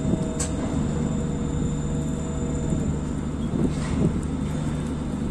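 Crane machinery running with a steady low drone and a constant hum as it hoists a speedboat in slings. A couple of brief clicks come about half a second in and again near four seconds.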